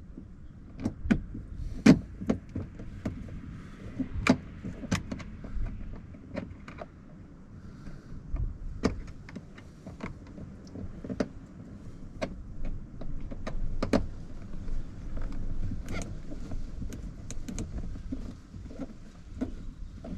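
Irregular clicks and knocks from hands working on a car's door trim and switch, over a low rumble.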